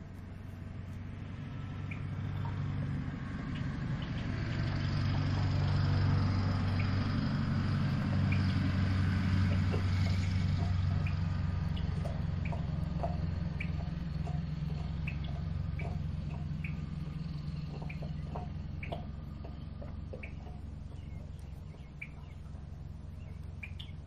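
A low engine rumble swells over several seconds and then slowly fades, like a vehicle passing at a distance. Short, sharp chirps or ticks are scattered through it, more of them in the second half.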